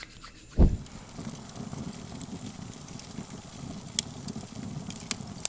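Wood fire crackling, with a steady hiss and scattered sharp pops, after one loud low thump about half a second in.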